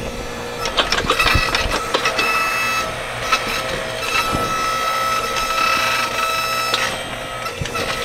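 Electric motor driving the hydraulic pump of a homebuilt backhoe, running with a steady whine as the arm and bucket are worked, with scattered knocks and scrapes as the bucket cuts into soil.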